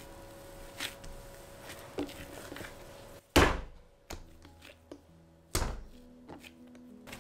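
Bread dough thrown down hard onto a silicone baking mat twice, about two seconds apart, each landing as a heavy thunk. This is done to work the dough before shaping. A few faint knocks of the dough being pressed and handled come before and between the throws.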